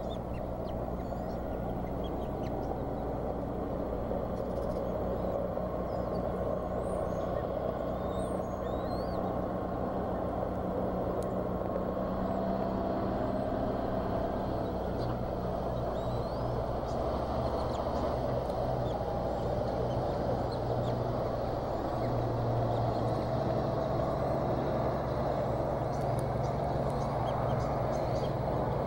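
Steady low rumbling background noise with a faint hum, from an outdoor nest-camera microphone, with a few faint high chirps scattered through it.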